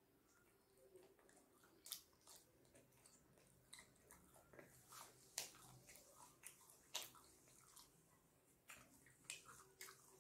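Close-up mouth sounds of a person chewing steamed chicken momos: irregular wet smacks and clicks, a few louder ones around 2, 5.5 and 7 seconds in.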